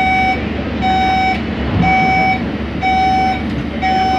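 Monorail door-closing warning beeps: a steady high-pitched beep repeating about once a second, each about half a second long, five times, over a steady low hum.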